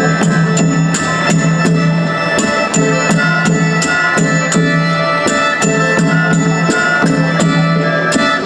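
Music with a steady drum beat, about two beats a second, under sustained instrumental tones.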